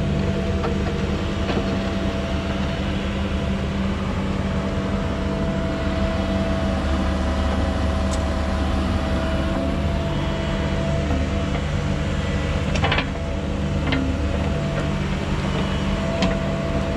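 Construction machine's engine running steadily, with a steady whine above it and a few sharp clanks about three-quarters of the way through.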